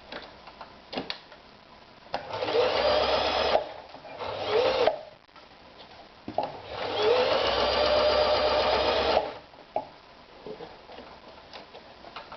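Toyota EX 390 electric sewing machine stitching in three runs, short, shorter, then a longer one of about three seconds. At each start the motor winds up in pitch. Light clicks come in the pauses between runs.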